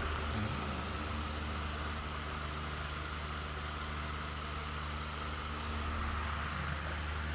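A motor running steadily: a constant low hum with a fixed pitch that does not change.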